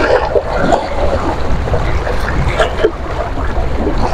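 Strong wind buffeting the microphone over a choppy sea, a steady low rumble, with waves splashing and slapping irregularly.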